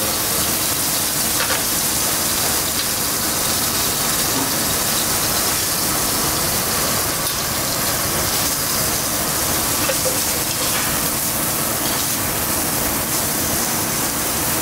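Beef steaks sizzling steadily in hot oil in a stainless steel pan as they sear.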